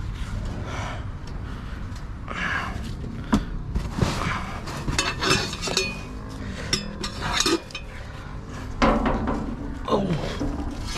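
Scrap metal clanking and rattling as a pile of junk is rummaged through and pieces are moved, with a string of irregular sharp metallic knocks.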